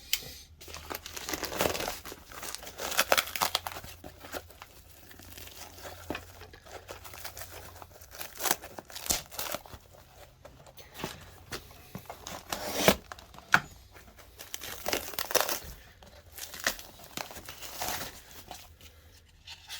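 Hands opening a mailed package: tape and cardboard tearing and packing material crumpling and crinkling, in irregular bursts of handling noise.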